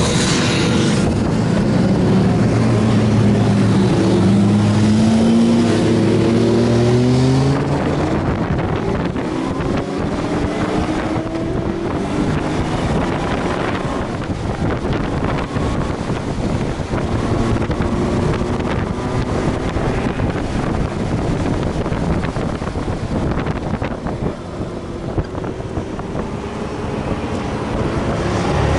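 Honda Gold Wing GL1500's flat-six engine pulling hard, its pitch rising for the first several seconds. About seven seconds in it drops back and heavy wind noise on the microphone takes over, the engine fainter underneath, until it grows louder again near the end.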